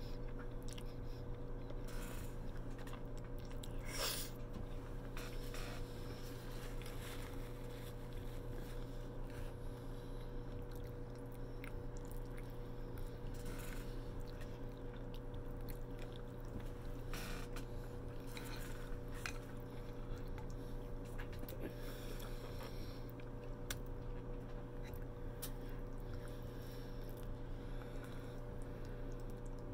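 A person chewing soft, saucy stuffed cabbage close to the microphone, with wet mouth sounds and now and then a sharp click of chopsticks against a glass bowl, over a steady low hum.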